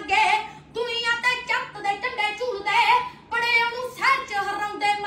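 A boy singing a Punjabi song solo, with no accompaniment, in phrases broken by short pauses.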